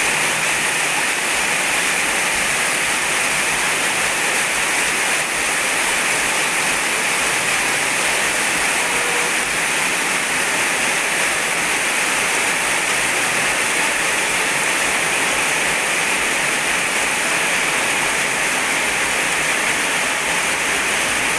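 Heavy rain falling on a wet paving-block car park: a dense, steady hiss of rain without a break.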